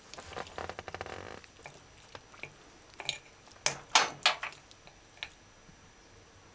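Metal fork scraping through rice on a ceramic plate, then clinking against the plate several times in quick succession about three to four seconds in, with one more clink just after five seconds.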